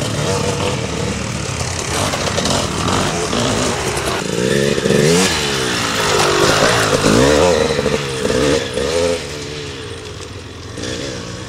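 Enduro dirt bike engines revving as the bikes ride past one after another. The loudest pass comes about five to nine seconds in, a bike going by close with its engine note sweeping up and down, and the sound drops away after that.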